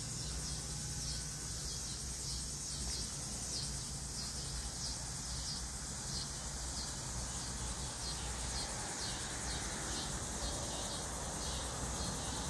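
Insects calling: a steady high buzz with short high chirps repeating about twice a second, over a steady low rumble.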